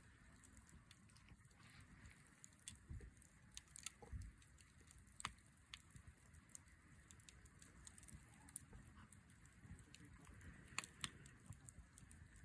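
Wood campfire crackling quietly, with scattered sharp pops; a few louder ones come about five seconds in and twice near eleven seconds.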